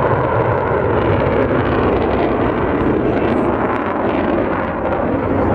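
Jet aircraft engines running loud and steady as it flies over the display area.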